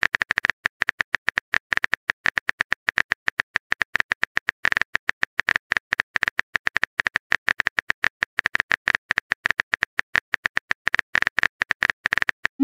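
Keyboard typing clicks of a texting-app sound effect, a quick steady run of short clicks, several a second, one per typed letter.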